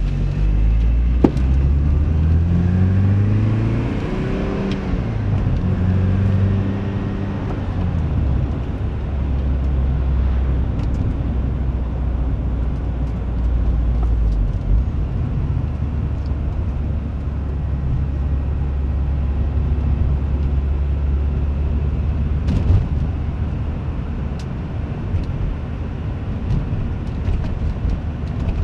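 Porsche 944 engine pulling up through the revs, easing back and pulling again, then settling into a steady low drone while driving. A single sharp knock comes about a second in, with another around two-thirds of the way through. The knock comes from the front right suspension when cornering left, a fault the owner still has to inspect.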